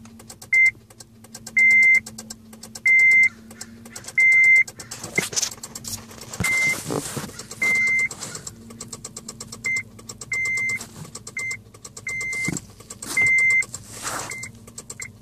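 A 2006 Honda Civic's warning chime beeping at one pitch in an irregular, stuttering pattern of short and long beeps. This is in a car that won't start because of a failing battery. There are a few clicks and some rustling about five seconds in.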